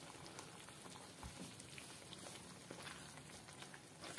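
Thick mushroom curry faintly bubbling and crackling in a kadhai just taken off the gas flame, with soft sounds of a ladle stirring through it and a soft low knock a little over a second in.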